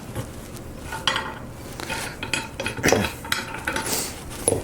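Small plastic set screws and plugs being handled, with irregular light clicks and clatter and a sharper knock about three seconds in.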